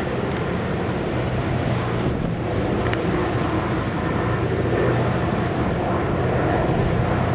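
The 3,400 hp diesel power unit of a Liebherr P996 backhoe dredge running with a steady low drone, with wind buffeting the microphone.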